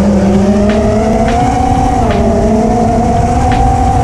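FPV mini quad's brushless motors and propellers whining in low, fast flight: a loud whine of a few steady tones whose pitch drifts up and down with the throttle.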